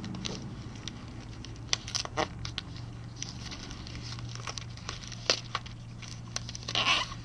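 Tape being wrapped around an insulated copper line set and drain hose at a wall penetration: scattered crinkling and crackling of the tape, with a longer tearing burst near the end as more is pulled off. A steady low hum runs underneath.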